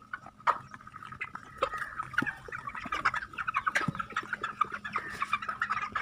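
A flock of broiler chickens calling, many short cheeping calls overlapping without pause.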